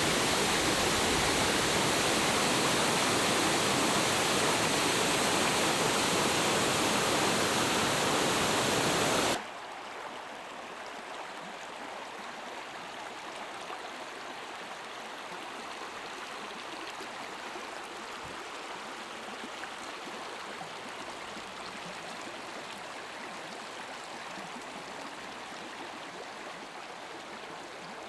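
Heavy rain pouring in a storm, a dense steady hiss. About nine seconds in it drops suddenly to a much softer, steady rain noise.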